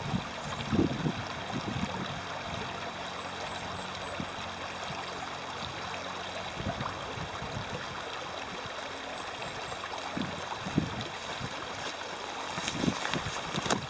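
Small, shallow mountain creek trickling over stones in a steady rush, with irregular low thuds of footsteps on a fallen log that come closer and cluster near the end.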